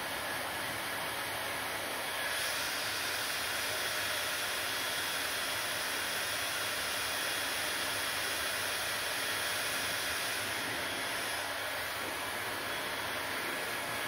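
Handheld hair dryer running continuously, its fan and air stream making a steady rushing whoosh as it blows through wet hair. The sound grows a little louder and brighter about two seconds in and eases slightly near the end.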